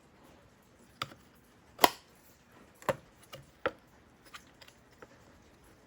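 A string of about eight sharp clicks and knocks, the loudest about two seconds in, from small hard parts being handled and set down.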